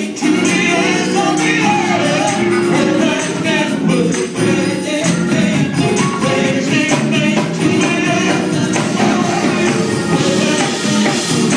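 Live worship band playing: a man singing into a microphone over drum kit and guitar, with a steady percussion beat.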